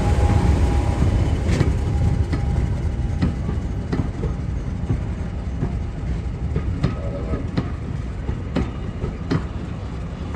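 A train running on the track, its wheels clicking over the rail joints at a steady rhythm of about one click every three-quarters of a second, over a low rumble that slowly fades.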